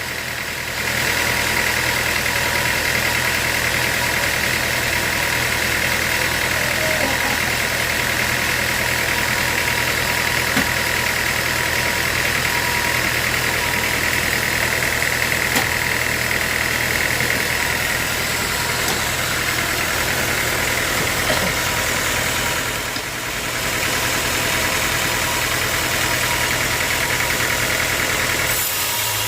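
Sawmill machinery running steadily: a motor's hum under a high whine that eases about two-thirds of the way through, with a brief drop in level about three-quarters in.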